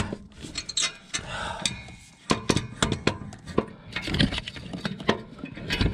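Irregular metal clunks and knocks of a heavy starter motor being worked into its mount, its housing catching on a mounting stud.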